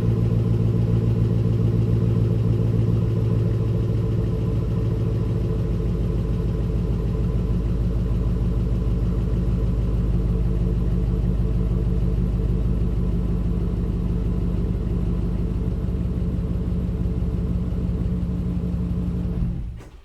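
Chevy Suburban's 5.3-litre V8 idling steadily through a straight exhaust with the muffler and resonator deleted, a deep, even rumble that cuts off near the end.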